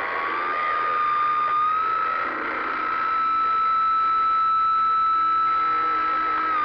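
CB radio receiver giving a steady whistle over static. The whistle slides up a little in pitch over the first two seconds, holds, then dips back near the end.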